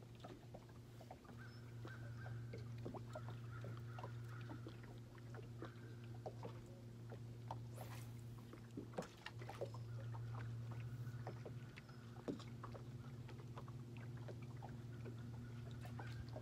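Bow-mounted electric trolling motor humming steadily, easing off and picking up again a couple of times, with scattered light clicks and ticks over it.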